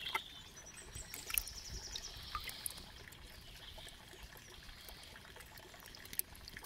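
Water trickling and dripping from a hand and a small fish, with small splashes in a plastic bucket, as a young carp is scooped out of the water and held. A few short sharp splashes or clicks stand out.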